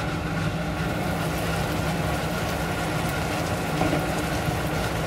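Chicken feet adobo simmering and sizzling in its sauce in a frying pan, a steady crackling bubble over a constant low hum.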